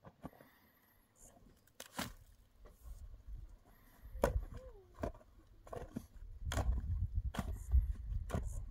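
Long-handled digging tool striking stony earth, a sharp strike near 2 s and then about one strike a second from about 4 s on. A low rumble sits underneath in the second half.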